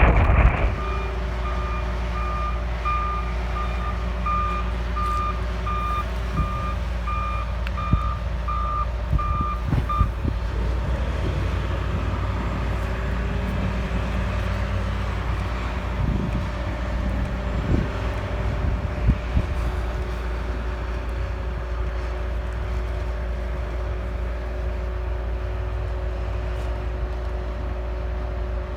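A truck's reversing alarm beeping in an even series for about the first ten seconds, then stopping, over the steady low rumble of idling vehicle engines.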